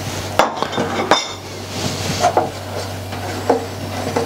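Wooden spoon stirring a thick cherry sauce in a stainless steel saucepan, knocking against the pan: two sharp knocks about half a second and a second in, then a few softer ones. The sauce is being kept moving so the custard-powder thickener does not go lumpy. A steady low hum runs underneath.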